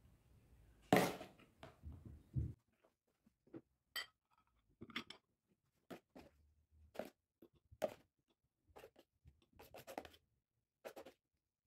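A glass dessert bowl on a glass saucer set down with a clatter about a second in, then a run of short scrapes and taps as a spoon scoops soft frozen strawberry ice cream from a container into the bowl.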